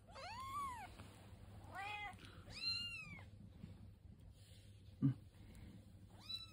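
A young kitten mewing: three short mews in the first three seconds and another at the very end, each rising then falling in pitch.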